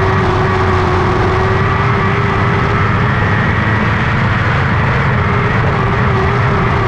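Lightning sprint car engine running hard at high revs, its pitch held nearly level with small rises and dips.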